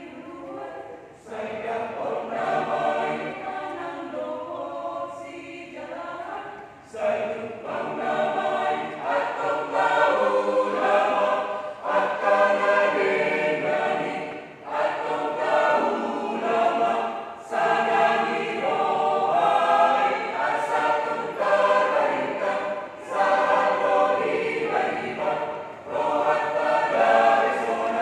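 A choir singing together in phrases of a few seconds, with brief breaks between them.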